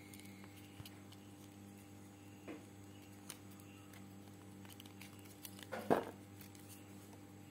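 Hands handling a watch's leather strap and metal buckle: scattered small clicks and rustles, with a louder rustle just before six seconds in, over a steady low hum.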